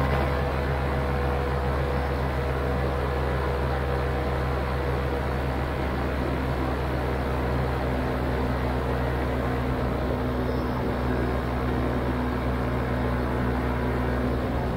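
Vittorazi Atom 80 single-cylinder two-stroke paramotor engine and propeller running at a steady cruise power in flight, an even drone.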